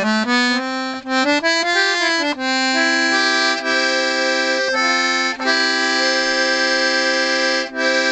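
1930s Pancotti accordion's bass reeds played note by note to test them: a quick rising run of single notes, then long held notes that change several times. The reeds are being checked after restoration, ahead of tuning.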